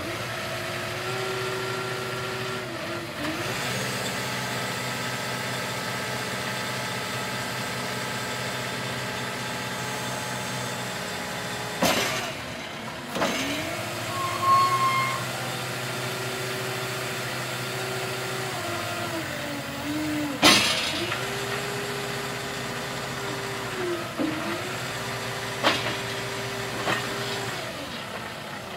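JCB 531-70 telehandler's diesel engine running steadily while the telescopic boom is raised, extended and lowered, its pitch dipping and rising again several times. A few sharp clunks stand out, the loudest about twelve and twenty seconds in.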